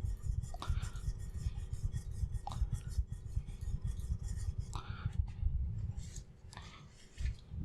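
Steel chisel back being rubbed flat back and forth on an oiled carborundum sharpening stone: a steady scraping with a stroke about every two seconds, dying down near the end.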